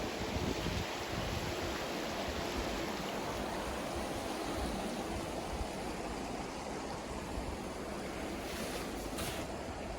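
The Bow River flowing, a steady even rush of water.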